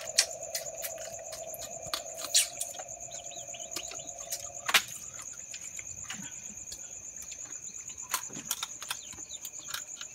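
Steady night chorus of crickets, a high trill with a fainter lower one, over scattered sharp clicks and cracks from people eating crab by hand. A lower steady drone runs under it and cuts off suddenly about halfway through.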